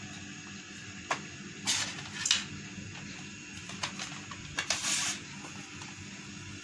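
Plates and bread being handled on a kitchen counter: a handful of short scrapes and clicks, the loudest a little after two seconds in, over a steady faint hum.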